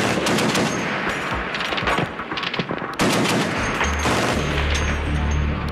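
Heavy machine gun firing in rapid bursts, with a short lull about two seconds in before it opens up again. A low steady rumble lies underneath from about two-thirds of the way through.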